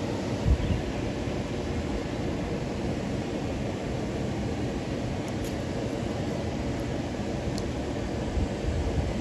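Steady rushing of creek water, with a few low gusts of wind buffeting the microphone, about half a second in and near the end.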